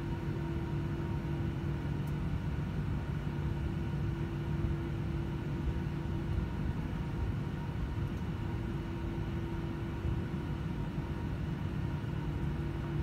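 Jet airliner cabin noise while taxiing after landing: the engines at taxi idle give a steady rumble with a constant low hum and a fainter higher tone, heard inside the cabin.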